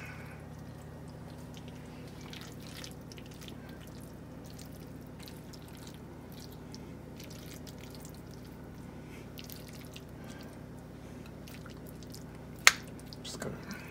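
Lumpy cheese mixture being scooped from a glass bowl with a silicone spatula and dabbed onto a lasagna in a foil pan: soft, scattered wet dabs and scrapes over a steady low hum, with one sharp tap near the end.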